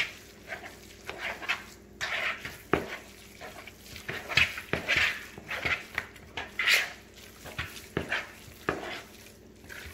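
Spoon stirring wet raw ground-beef meatloaf mixture in a plastic bowl: irregular squishing strokes, with a few sharper clicks of the spoon against the bowl.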